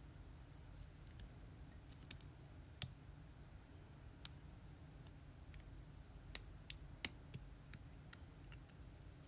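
Lock pick and tension wrench working the pins of a Lockwood pin-tumbler lock: irregular light clicks, with two louder clicks a little past the middle.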